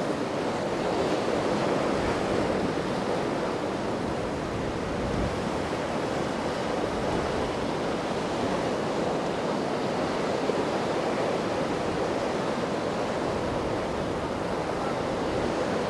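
Rough, choppy inlet water rushing and breaking in a steady wash, with wind on the microphone.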